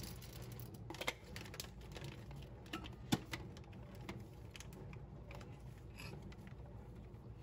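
Scattered light clicks and taps over a steady low hum, with sharper single clicks about one second and three seconds in.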